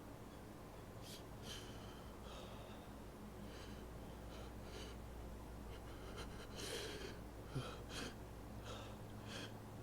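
A person's faint, quick hitching breaths and gasps, a dozen or so short in-breaths at uneven spacing, bunched together about two-thirds through: the build-up to a sneeze in an allergy sneezing fit.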